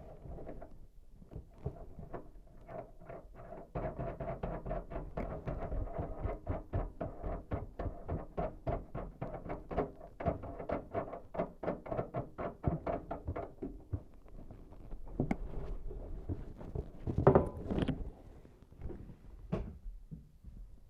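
Under-sink faucet mounting hardware being tightened: a long, even run of ratcheting clicks, about three to four a second, with a faint ringing tone under them. One louder knock comes near the end.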